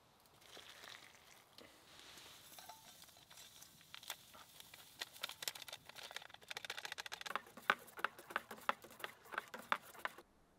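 Hot water poured from a stainless steel camp mug into a freeze-dried meal pouch, then a hot cocoa packet handled and its powder tipped into the mug. A soft hiss comes first, then a run of small crackles and ticks that cuts off suddenly near the end.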